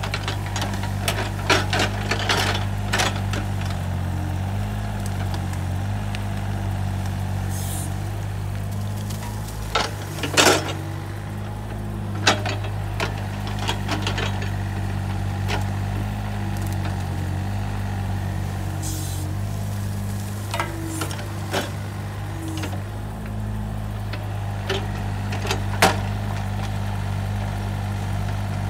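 Takeuchi TB135 mini excavator's diesel engine running steadily as it works, with scattered knocks and metal clanks from the bucket and arm as it digs out brush and stumps. The loudest bangs come about ten and twelve seconds in.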